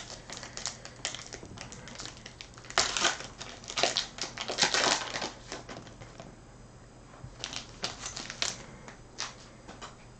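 Trading cards and a foil pack wrapper being handled: a run of sharp clicks and crinkling rustles, loudest in a burst about three to five seconds in, then scattered clicks near the end.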